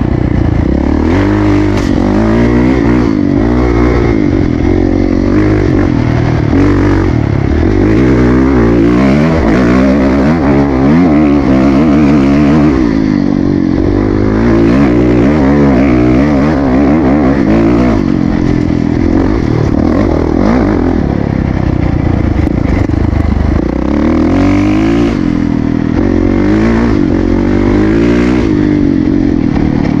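Dirt bike engine under way on a dirt trail, its pitch rising and falling again and again as the throttle is opened and closed.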